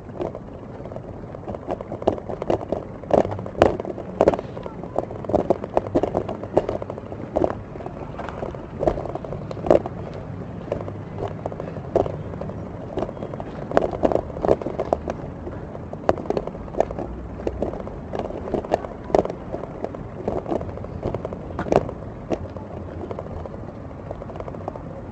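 Wheels rolling over paving slabs: a steady low rumble with frequent irregular knocks and rattles as they cross the joints.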